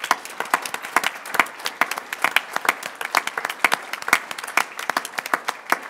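Audience applauding: many hands clapping together in a dense, steady run.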